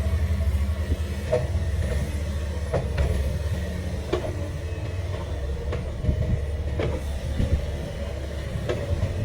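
Komatsu PC500LC excavator's diesel engine running with a steady low drone, with irregular metallic clanks about once a second.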